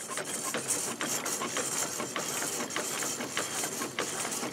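An engine running with an uneven clatter of sharp knocks, several a second.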